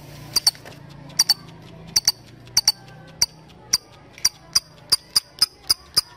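Lovebird giving short, sharp, high chirps, at first in pairs with gaps, then speeding up into an even run of about four a second: the build-up into the long chattering song (ngekek) that bird keepers try to draw out.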